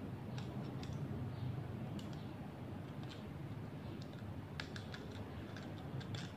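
Scattered light clicks and ticks of thin tin-can metal being bent and folded by hand, with a quick cluster of clicks about two thirds of the way through, over a low steady hum.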